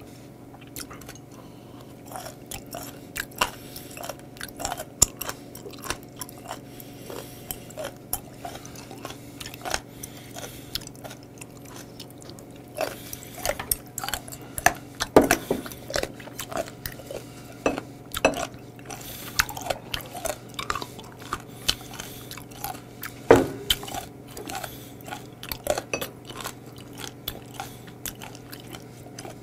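Close-miked chewing of crunchy raw seafood: irregular crunches and wet mouth clicks, over a steady low hum.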